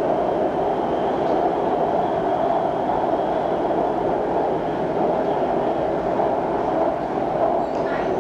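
BTS SkyTrain car running between stations, heard from inside the carriage: a steady running noise with a faint high whine above it.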